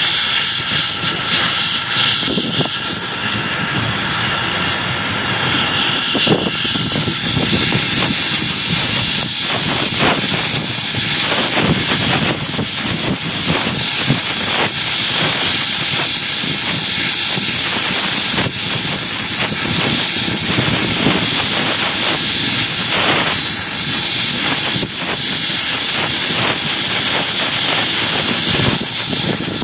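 Spokane, Portland & Seattle 700, a 4-8-4 steam locomotive, running along the line, heard from the cab with the microphone out in the wind: a loud, steady rush of steam, wind and running gear, with a thin steady high whine from about six seconds in.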